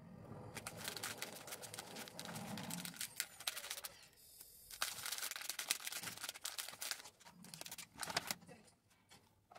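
Paper bag rustling and crinkling while items are packed into it, in three spells of handling with short pauses between.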